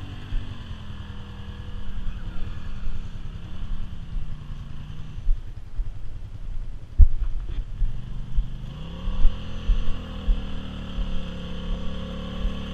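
ATV engine running through deep mud, its pitch wavering and then rising as it revs up about eight or nine seconds in and holding high. Irregular low thumps, with one sharp knock about seven seconds in.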